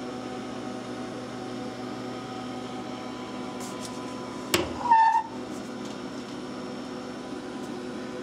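Steady machine hum with several fixed pitches. About four and a half seconds in there is a sharp click, then a brief high-pitched squeak, the loudest sound here.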